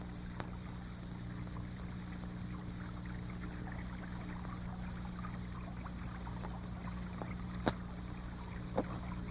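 Faint steady background noise with a low hum, and two short clicks near the end.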